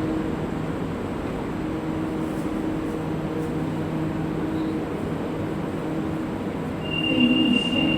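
Santiago Metro Line 5 train humming steadily in the station, with a low drone. About seven seconds in it gets louder and a high, steady squeal from the wheels sets in as the train moves.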